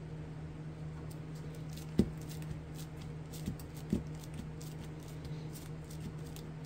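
Crumpled, ink-aged paper being pressed and smoothed down by hand onto a glued tag: faint rustling and scratching, with a soft thump about two seconds in and another about two seconds later, over a steady low hum.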